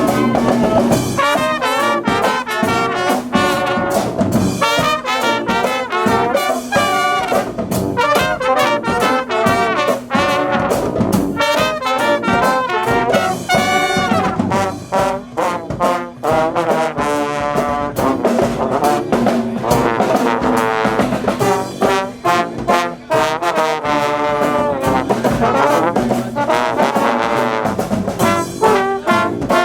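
Brass marching band playing a tune live, with trombones and trumpets leading over steady drumming.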